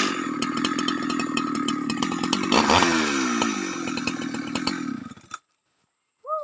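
Husqvarna 365 chainsaw idling with a steady hum and fine clicking, after its revs have dropped off from cutting. It cuts off suddenly about five seconds in. Near the end there is one short call that falls in pitch.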